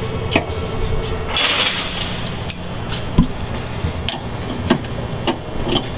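Open-end wrenches clinking and clicking against the jam nuts of an anti-roll bar link as they are tightened, with a short scraping rustle about a second and a half in. A steady low hum runs underneath.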